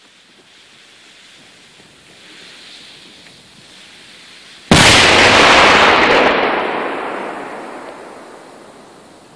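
Cobra 8 firecracker with a 100 g flash-powder charge: its lit fuse hisses faintly, then about five seconds in it goes off in a single extremely loud bang. The blast's rumble rolls on and dies away over the next few seconds.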